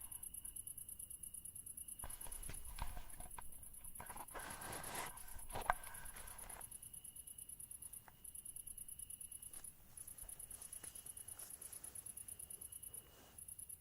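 Crickets singing: a rapid, high-pitched pulsing trill, with short breaks about ten and thirteen seconds in. In the first half a rustling with a few clicks sounds over it, ending in a sharp click, the loudest sound, a little under six seconds in.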